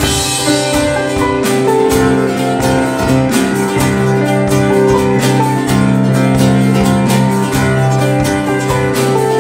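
Church band playing an instrumental passage of a hymn: strummed acoustic guitar over keyboards holding long chords, at a steady beat.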